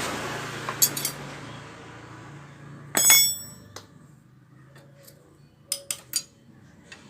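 Metal tools and engine parts clinking and knocking during motorcycle engine disassembly. The loudest is one ringing clink about three seconds in, with a few shorter clicks later. A hiss fades away over the first few seconds.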